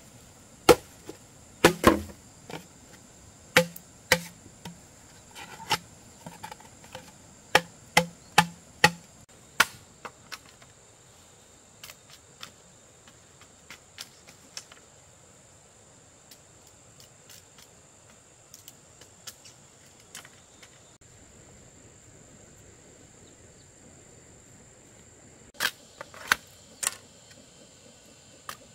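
A series of sharp knocks, about a dozen in the first ten seconds and three more near the end, over a steady high-pitched drone of insects.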